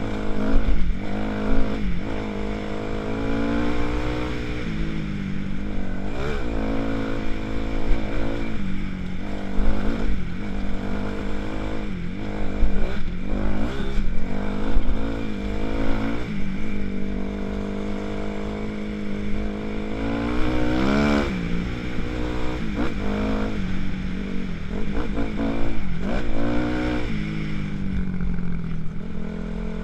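2006 Kawasaki KX250F's single-cylinder four-stroke engine under way on a dirt trail, its pitch rising and falling again and again as the throttle is opened and closed, with a sharp high rev about two-thirds of the way through.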